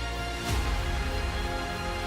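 Intro music of sustained tones, with a sudden accented hit about half a second in that brings in a heavy low bass.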